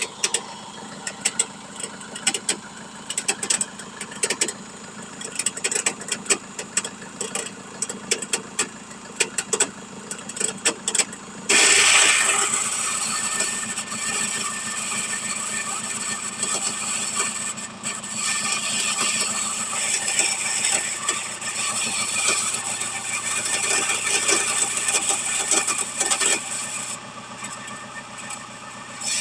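Opel Vivaro van's engine running, with irregular sharp ticking and rattling from the alternator: a small loose piece of metal or stone inside it. About eleven seconds in, the sound jumps much louder into a steady hiss that lasts until shortly before the end.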